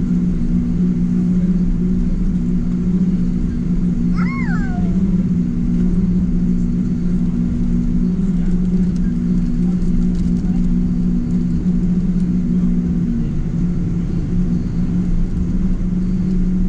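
Steady drone inside the cabin of a Boeing 777-200ER airliner. About four seconds in there is a brief high cry that rises and then falls.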